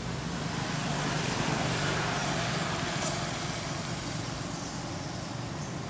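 A road vehicle passing: its engine and tyre noise swells over the first couple of seconds, then fades, over a steady low hum.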